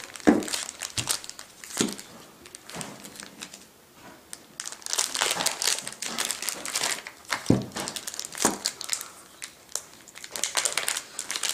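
Plastic bag crinkling and rustling as it is cut open with scissors and pulled off rolls of silver half dollars, broken by a few sharp clicks.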